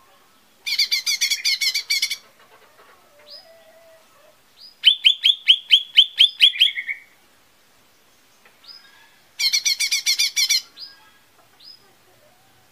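Lesser green leafbird (cucak ijo mini) singing: three bursts of rapid repeated high notes, each one to two seconds long, with soft short calls between them.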